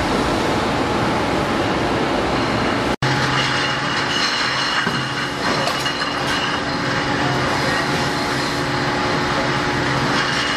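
Loud, steady brewery machinery noise with a low hum and a thin high whine over it. The sound drops out for an instant about three seconds in.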